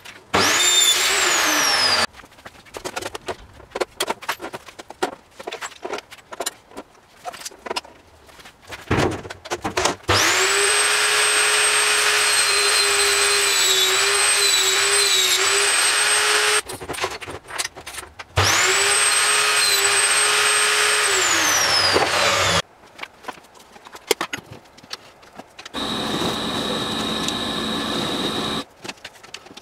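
Home-built CNC mill's spindle motor running in three separate runs with a high steady whine, rising in pitch as it spins up and falling as it winds down; in the longest run the pitch dips slightly several times. Between the runs come scattered clicks and rattles, and near the end a different steady machine hum plays for a few seconds.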